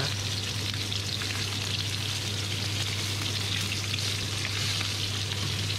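Lamb chops sizzling in hot oil in a frying pan as they are turned with tongs, with a steady low hum underneath.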